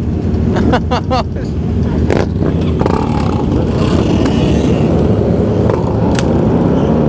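Several motorcycle engines running together on a group ride, a steady dense engine sound.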